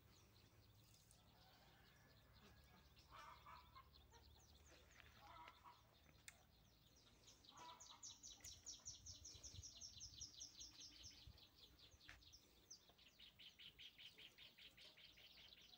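Faint outdoor birdsong: fast runs of high, evenly repeated chirps, several notes a second, one in the middle and another near the end, with a few short lower calls earlier on.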